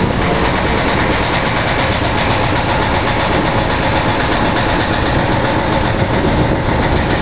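An engine running steadily with a dense, heavy rumble that does not change pace.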